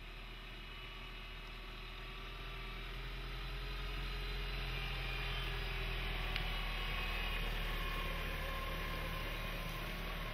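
Isuzu D-Max pickup's 1.9-litre common-rail diesel engine running at low revs as the truck wades through deep water, with water sloshing around its wheels. It grows louder over the first few seconds as the truck comes close past.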